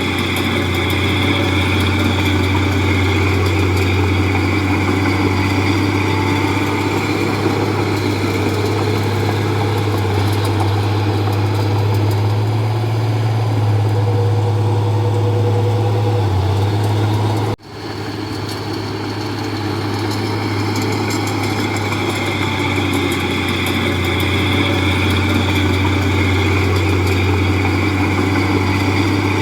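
Komatsu D31P crawler bulldozer's diesel engine running steadily with a deep drone. The sound cuts out for an instant about two-thirds of the way through, then returns.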